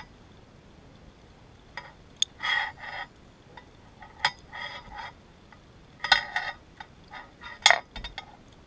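Underwater metallic clinks, knocks and rattles in several short clusters, the loudest near the end. This is hardware on the freediving line's bottom plate and line being handled by a diver at depth.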